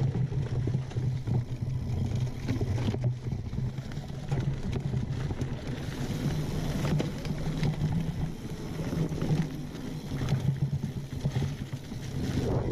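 Mountain bike ride noise: tyres rolling over leaf-covered dirt singletrack, with frequent small clicks and rattles from the bike, over a steady low hum.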